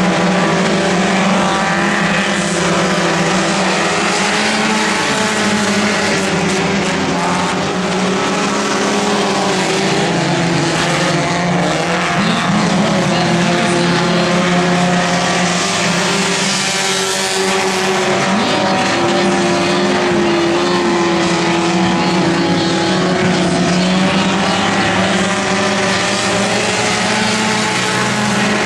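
A pack of front-wheel-drive dirt-track race cars running hard, several engines overlapping in a steady drone. The pitch rises and falls now and then as cars pass.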